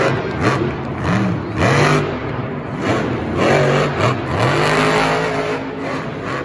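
A Monster Jam monster truck's engine revving up and down several times, its pitch rising and falling as the truck spins donuts on a dirt arena floor.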